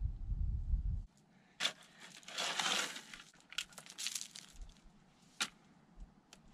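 A steel shovel digging into rocky clay and gravel: a few sharp scrapes and clinks, with a longer scrape about two and a half seconds in. A low rumble stops about a second in.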